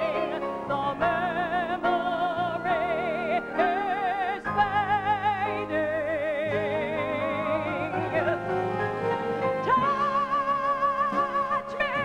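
A woman's soprano voice singing a slow stage-musical ballad in long held notes with a wide vibrato, over sustained instrumental accompaniment, climbing to a higher held note near the end.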